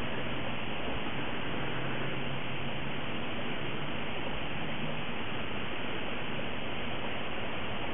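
Steady, even hiss with a faint low hum beneath it and no distinct events.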